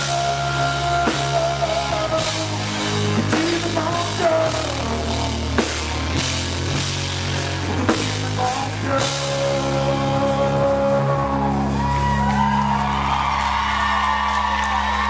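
Live rock band playing an instrumental passage: electric guitar lead with bent, sustained notes over bass and drum kit. Near the end the guitar holds long, wavering high notes.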